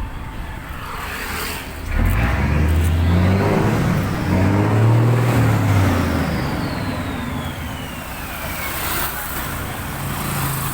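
Mitsubishi 6M70 straight-six diesel truck engine running, revved up suddenly about two seconds in, held for a few seconds, then let back down toward idle, a high whine falling away as the revs drop. The engine runs again after a cranking no-start fault.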